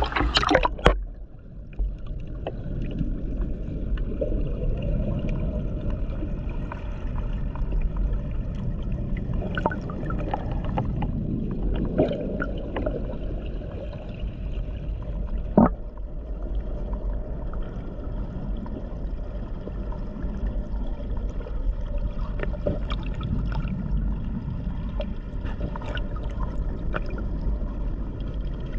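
Splashing as the camera plunges into a river rapid, then the muffled underwater rush of flowing river water, steady and low, with a few scattered clicks and knocks.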